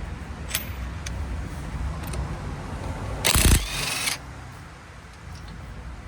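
Impact gun with a 19mm socket hammering a wheel lug nut loose in one loud burst of about a second, a little past the middle, over a steady low hum.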